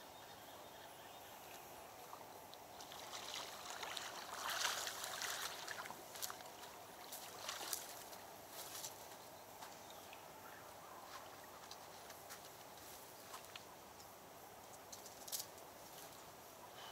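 Faint splashing and rustling as a small chub is reeled in on a ledger rod and drawn out of the river. It is loudest about four to six seconds in, with scattered light clicks and taps after it.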